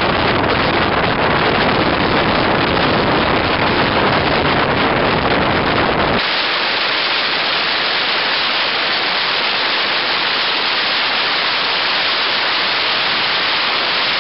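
A loud, steady rushing noise with a deep rumble. About six seconds in the rumble cuts out abruptly, leaving a brighter, hissing rush.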